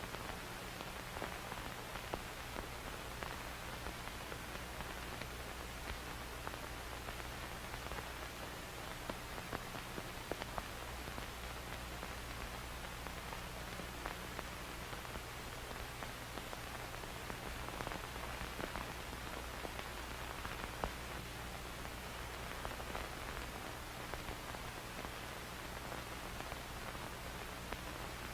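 Old film soundtrack crackle: a steady hiss peppered with random small pops and clicks, over a low steady hum.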